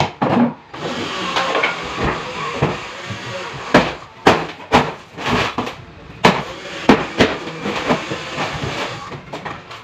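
A run of sharp knocks and clacks on the wooden wardrobe doors, irregular, about one or two a second, over a steady hiss.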